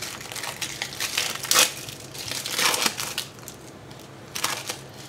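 Plastic film wrapper of a Toastinette processed cheese slice crinkling as it is peeled open by hand, in a few short crackles.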